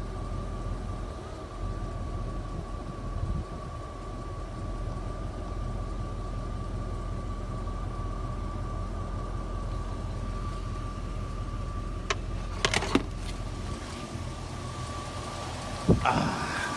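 1999 Jeep Grand Cherokee WJ's 4.7-litre V8 idling at about 640 rpm with a slightly rough idle. New plugs, injectors and coils have not cured it, and the owner suspects drag from a bad power steering pump. A steady high tone runs over the idle, and a few clicks come near the end, followed by a louder thump.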